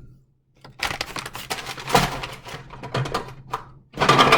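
Food packaging and containers being handled while a refrigerator is cleared out: crackling, crinkling and small knocks, with a louder rustle or clatter near the end.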